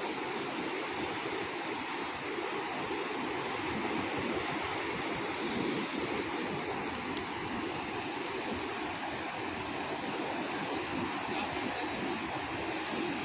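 Ocean surf washing onto a beach, a steady rush of waves.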